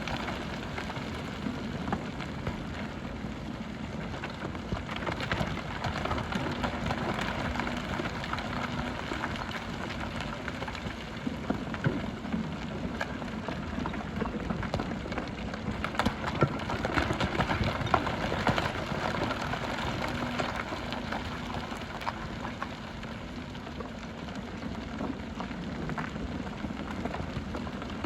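Hyundai HX300 excavator working aggregate: a continuous rattle and clatter of gravel and stones scraping and tumbling, over the low hum of the diesel engine, which rises and falls a little.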